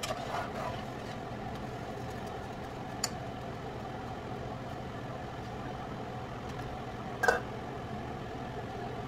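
A steady mechanical hum, with a faint click about three seconds in and a short clatter about seven seconds in.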